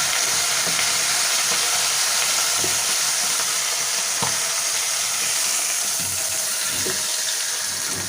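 A whole duck sizzling as it is browned in hot ghee with garlic in a pot, a steady hiss of frying. A few light knocks come through, about two and a half, four and seven seconds in.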